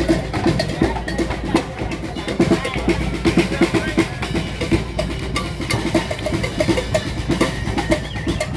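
Street band playing a busy drum passage: rapid snare strokes over a steady beat, with short pitched notes underneath.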